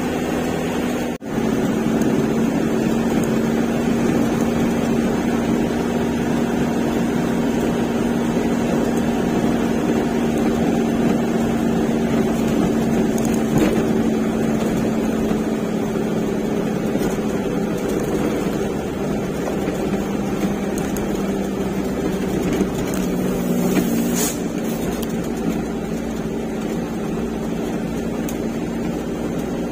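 Truck engine running steadily while the truck drives, with road noise; the engine note drops slightly about three-quarters of the way through.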